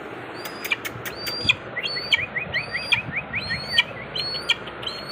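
Young eagle chick calling: short, high-pitched piping calls repeated about twice a second, with a quick run of chirps in the middle.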